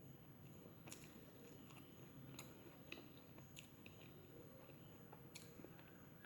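Faint close-up chewing of food, with a few sharp wet mouth clicks and small crunches scattered through it.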